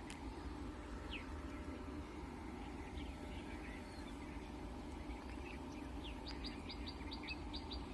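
Small birds chirping, scattered at first, then a quick run of short, high chirps about four a second over the last second and a half, over a steady low background noise.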